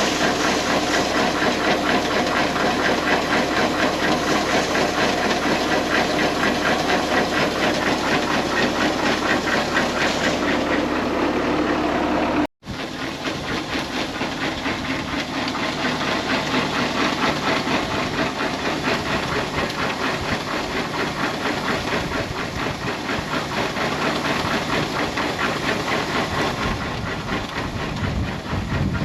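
Tractor diesel engine running steadily with a hissing, clattering rattle. A brief cut about twelve seconds in is followed by slightly quieter running.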